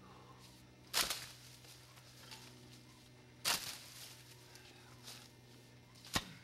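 A long-handled chopping tool struck three times into roots and soil, each blow a sharp thud about two and a half seconds apart, the last one shortest and crispest.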